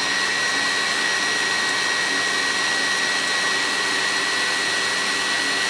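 KitchenAid Classic stand mixer running steadily, its wire whip beating egg whites in a steel bowl into meringue, with a steady high motor whine.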